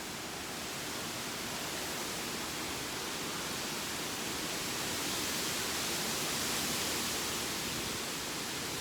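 Gusting hurricane wind rushing through the treetops as a steady hiss that is a little noisy. It swells into a stronger gust about six seconds in, then eases slightly.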